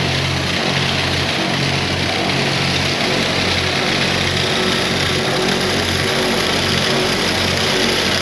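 Vehicle engine running steadily under way, with a constant hum and road and wind hiss.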